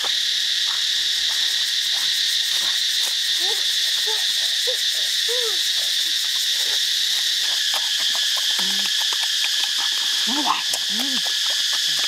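Steady, loud chorus of insects such as cicadas or crickets, a high buzzing drone that runs unchanged. A few short, low calls that rise and fall in pitch come through it, a cluster a few seconds in and more near the end.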